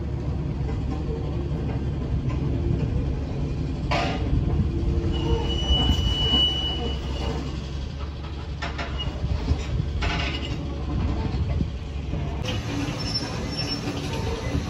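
Jet airliner passing overhead at a distance: a steady low engine rumble, with a few short noisy bursts and a brief thin high tone partway through.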